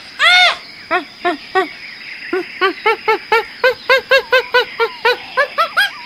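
An animal calling in a rapid series of short hoots, each rising and falling in pitch. One loud call comes first, then a few spaced ones, then a fast run of about four a second. A steady high-pitched tone hums underneath.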